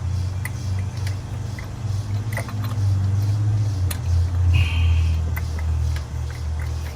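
Light metal clicks and clinks of a ratchet extension and spark plug socket being worked inside a spark plug well, over a steady low rumble. A short higher squeak or whine comes about two-thirds of the way through.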